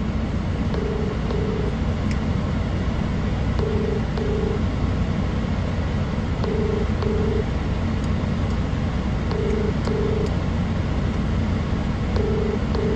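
Telephone ringback tone from a phone's speaker as an outgoing call rings without being picked up: a double ring, two short tones of the same pitch, repeating five times about every three seconds. Under it is a steady low rumble inside the car.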